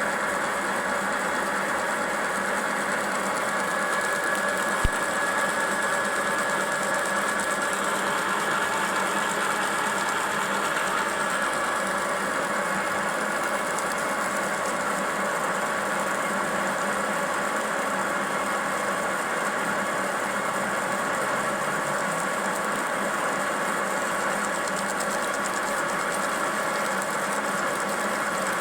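Conventional lathe running steadily, with a constant machine whine over its mechanical noise, while turning a hard plastic cylinder. A single sharp click about five seconds in.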